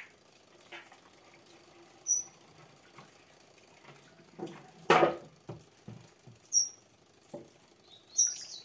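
Thick liquid soap poured from a plastic bag into a plastic bottle, with handling clicks and one sharp knock about five seconds in. Three short, high chirps or squeaks come about two, six and a half and eight seconds in.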